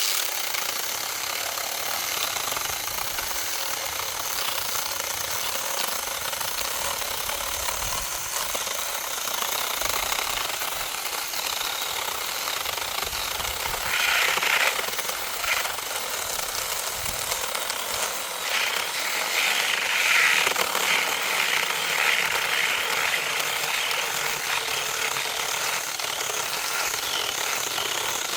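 Cheap mini chainsaw running and cutting into wood thicker than it is made for. The chain noise gets louder and harsher about halfway through, and again for a few seconds a little later.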